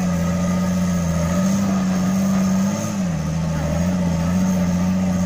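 Toyota Land Cruiser engine held at steady revs, rising and dipping slightly a few times, while the truck sits stuck on a rock step and does not climb it.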